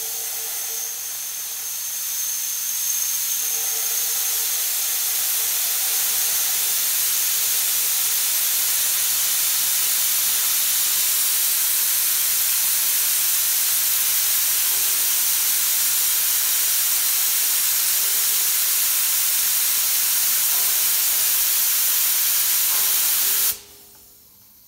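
Compressed air hissing steadily out of a paint spray gun held at full trigger, growing louder over the first few seconds as the air adjuster is opened up to set the gun at 30 psi. The hiss cuts off suddenly near the end as the trigger is let go.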